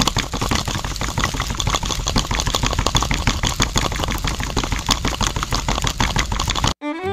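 Small electric motor turning a miniature concrete mixer drum loaded with wet concrete, running steadily with a dense, rapid rattle. It cuts off suddenly near the end.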